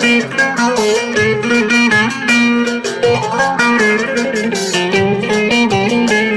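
Electric bağlama (elektro saz) playing a quick, plucked instrumental melody over a held low note, with a steady backing beat.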